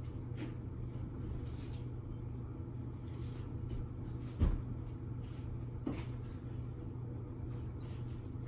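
A steady low hum throughout, with a few faint light taps, one dull thump about four and a half seconds in and a softer knock at about six seconds.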